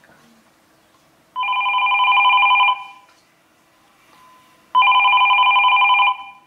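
A telephone ringing twice. Each ring is a fast, warbling trill about a second and a half long, and the two rings are about two seconds apart.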